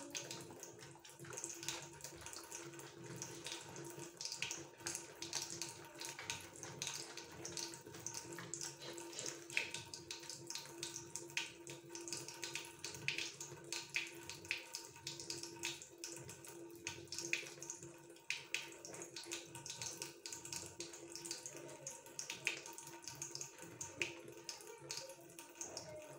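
Hands being washed at a sink with the tap running: water splashing unevenly, with many small splashes as the wet hands rub together and are rinsed.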